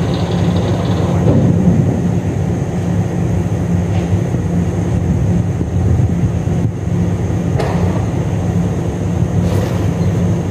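Small wooden boat's engine running steadily, a constant low hum.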